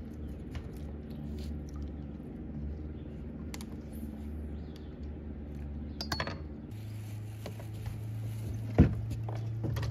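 Small metallic clinks and knocks of fishing gear, a few scattered ones and one sharper knock near the end, over a steady low hum that shifts slightly higher about two-thirds in.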